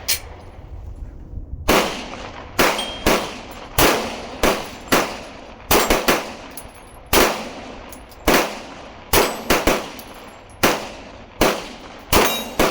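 A 9 mm semi-automatic pistol fired in a long string of about eighteen shots, spaced about half a second to a second apart and starting about two seconds in, at steel targets, with a faint ring from the plates after some hits.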